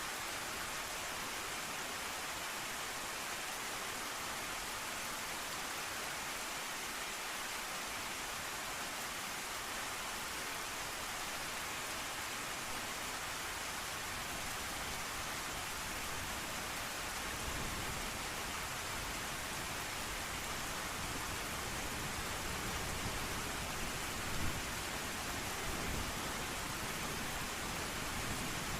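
Steady rain hiss, with low thunder rumbling from about halfway through and peaking briefly near the end.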